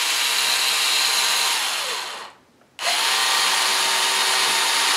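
Cordless drill with a 3/16-inch bit boring into the base of a deer antler. It runs steadily, falls in pitch and stops about two seconds in, then starts again half a second later and keeps running.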